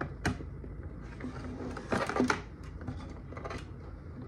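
Plastic clicks and knocks from a 3D-printed helmet faceplate being pushed down and handled on its hinge, with a sharp click early on and a short clattering rattle about two seconds in.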